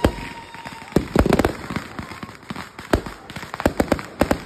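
Aerial fireworks going off: a rapid, irregular series of sharp bangs and pops in clusters, with a whistling tone that fades out about a second in.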